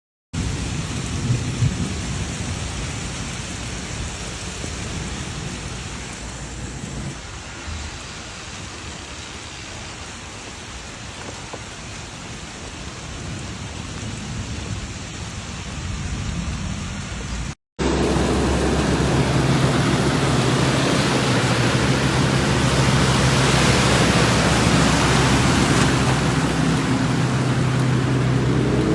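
Heavy rain pouring, with a low rumble, in two recordings joined by a brief silent cut about two-thirds of the way through; the second is louder and has a steady low hum under the rain.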